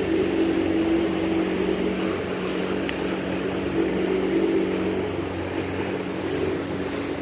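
Boat's outboard motor running steadily at cruising speed: an even, droning engine note over the rush of water and wind past the moving hull.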